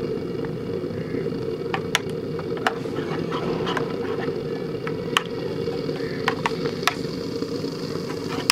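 Metal spoon stirring a white sauce in a small lidded box, with light clicks and taps against its sides scattered through, over a steady low rumble.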